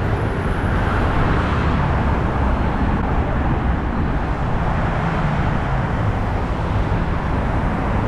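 Steady road and engine noise inside a moving taxi's cabin: a constant low rumble with a hiss of tyres and wind above it.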